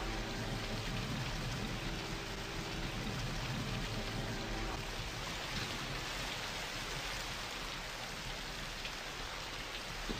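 Steady rain, with runoff water pouring into a storm drain: an even hiss.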